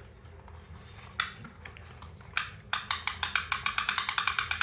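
A small spinning toy clicking: two single knocks, then from about two and a half seconds in a rapid, even rattle of about ten clicks a second.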